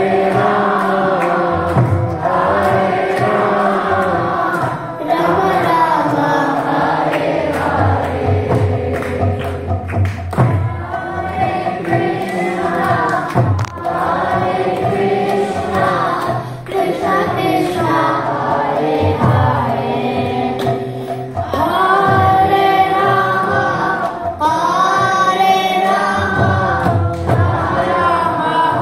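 Children's group singing a Bengali Vaishnava devotional song in unison, with a regular clicking beat underneath.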